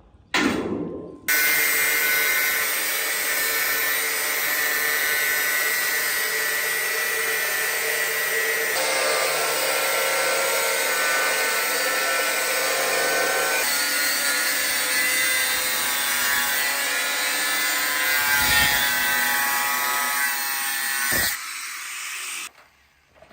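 A power tool running under load for about twenty seconds, its pitch pattern shifting twice before it cuts off suddenly near the end.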